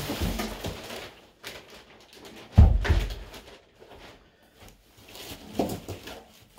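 A heavy Line 6 PowerCab 212 Plus guitar speaker cabinet set down on the floor with one loud low thud about two and a half seconds in, followed by rustling of its plastic wrap and the cardboard box, and a smaller knock near the end.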